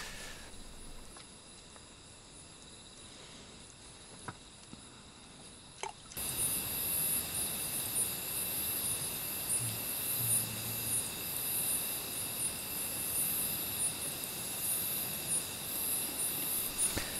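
Crickets and other night insects chirping in a steady, pulsing, high-pitched chorus that starts abruptly about six seconds in. Before that it is faint, with two small clicks.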